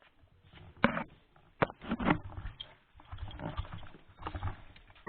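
Irregular handling noise: a few sharp knocks and clicks, the loudest about a second in and again near the end, with rustling between.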